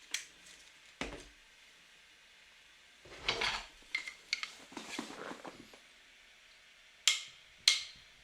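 Small hard objects being handled: a few sharp clicks and light knocks, with brief rustling or scraping in the middle.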